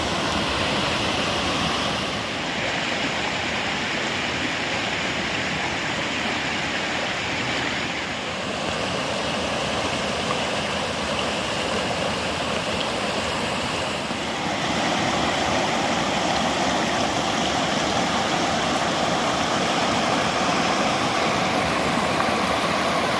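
Steady rushing of a fast-flowing river swollen by rain. The character of the rush shifts a few times, at about two, eight and fourteen seconds in.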